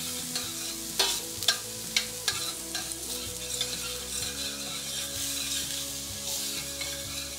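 Diced onions and garlic sizzling in butter in a stainless steel sauté pan, stirred with metal tongs that click against the pan several times.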